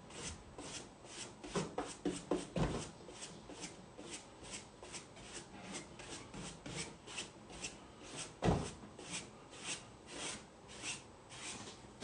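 Paintbrush stroking sealer over decoupage tissue paper on a tabletop: a quick, even swish about three strokes a second. Two dull knocks, about two and a half seconds in and near eight and a half seconds.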